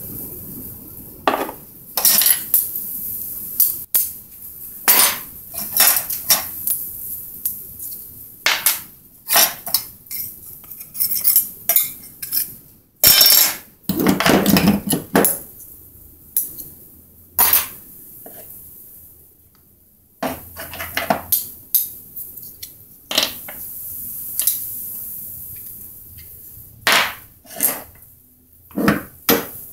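Metal chainsaw engine parts (crankshaft, clutch drum, bearings and bolts) clinking and knocking as they are handled and set down on a workbench, in irregular sharp knocks with a longer clatter about halfway through.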